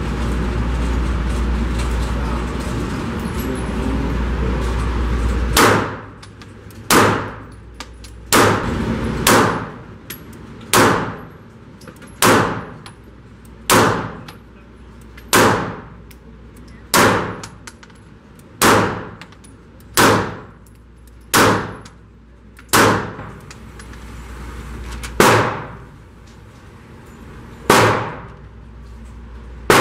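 A Taurus G3 Tactical 9mm pistol fired at a slow, steady pace at an indoor range, about fifteen shots, each one every second or two and ringing off the range walls. Before the first shot there are about five seconds of steady loud rushing noise.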